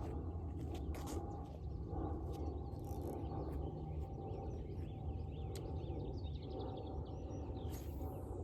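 Small birds chirping and twittering over a steady low outdoor rumble, with a few faint clicks.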